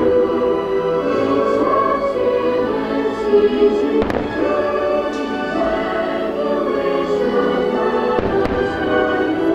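Fireworks bursting over choral and orchestral show music. A few sharp bangs cut through the sustained music, the strongest about four seconds in and another about eight seconds in.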